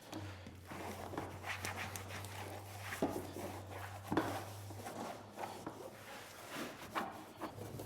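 Cloth wiping and rubbing over a riding mower's plastic body panels, with scattered light knocks and handling noise. A low steady hum runs underneath for the first five seconds or so, then stops.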